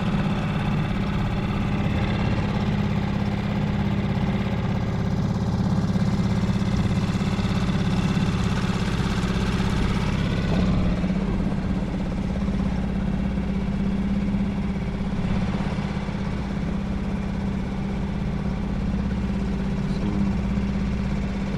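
Small outboard boat motor running steadily at low speed, with a constant low drone.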